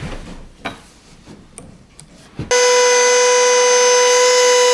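Soft knocks of a board being set down, then, about two and a half seconds in, a table-mounted Makita router suddenly sounds a loud, steady high whine as the board is fed past the bit to cut a shallow groove.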